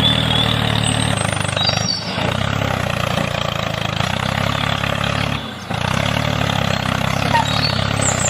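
Tractor engine running steadily at low revs, with a low even throb, cut short twice by brief drops: about two seconds in and again about five and a half seconds in.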